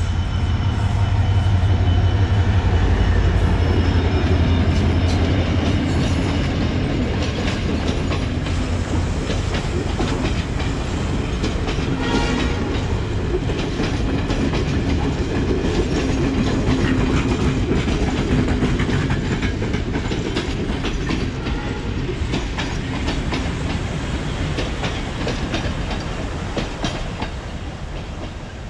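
Diesel-hauled passenger train passing close by: the locomotive's engine drone is loudest in the first few seconds, then the coaches roll past with a steady clickety-clack of wheels over the rail joints. The sound fades near the end as the train moves away.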